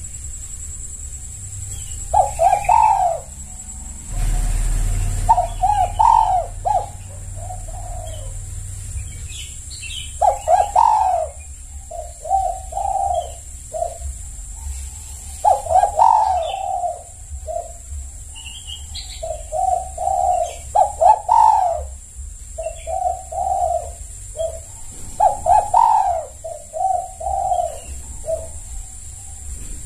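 Spotted dove (tekukur) cooing: repeated phrases of several low, rolling coos, each phrase a few seconds long with short pauses between them.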